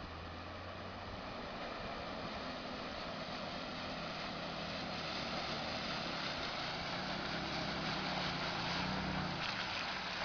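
Mitsubishi Montero Sport's engine running as the SUV drives through shallow water, growing gradually louder as it approaches, with the rushing of water pushed aside by the wheels strongest near the end.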